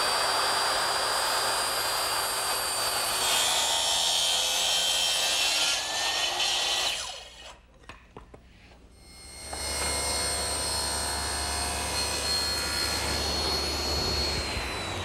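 Handheld circular saw running and cutting through clamped pine panels, its motor whine steady, stopping about seven seconds in. After a short lull, a table saw runs, ripping a pine board at an angle, with a low hum under its whine, from about nine and a half seconds on.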